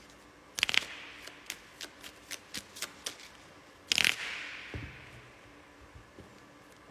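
A deck of Lenormand fortune-telling cards being shuffled by hand: two short rushes of cards, about half a second in and about four seconds in, with a run of light card clicks between them.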